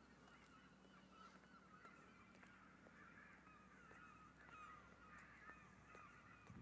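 Faint chorus of many overlapping short bird calls, one after another, over a low steady hum.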